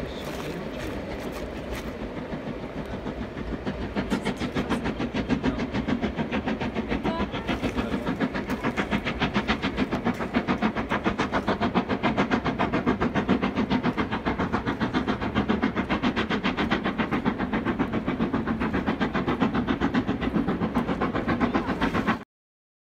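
Steam locomotive hauling a train across a stone viaduct, its exhaust chuffing in a quick, even rhythm that grows louder about four seconds in and cuts off suddenly near the end.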